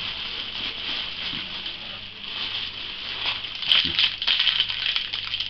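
Clear plastic wrapping and tissue paper rustling and crinkling as hands pull the packing out of a cardboard box. The crackling gets busier and louder a little before the end.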